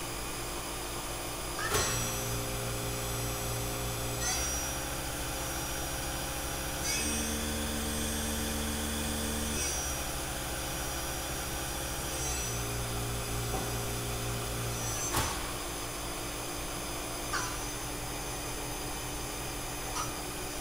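Mori Seiki SV-500/40 vertical machining center running a program: a motor whine starts about two seconds in and changes pitch in steps about every three seconds, each change marked by a click, until it stops about fifteen seconds in. A steady machine hum runs underneath throughout.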